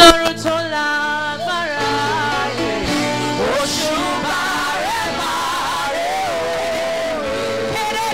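Church worship singers singing a praise song into microphones over live music, holding long notes that slide between pitches.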